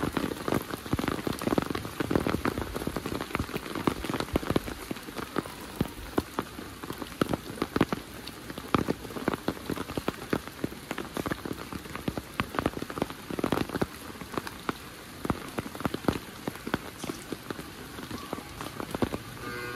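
Heavy rain falling steadily, with many sharp, close drops striking nearby surfaces.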